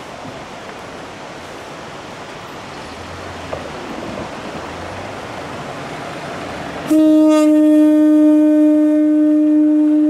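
Kamioka Railway KM-101 diesel railcar sounding its air horn: one long, steady, single-pitched blast that starts suddenly about seven seconds in. Before it there is a rushing noise that slowly grows louder.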